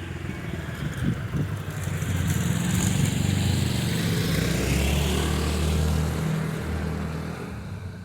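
A motor vehicle's engine passing by: it grows louder over the first few seconds, holds, then fades away near the end.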